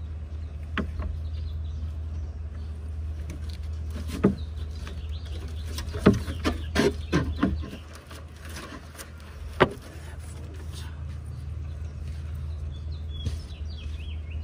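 Hinged plywood platform panels being lifted, folded and set down in an SUV's cargo area: scattered wooden knocks and thumps, most of them bunched together in the middle, over a steady low hum. Birds chirp faintly near the end.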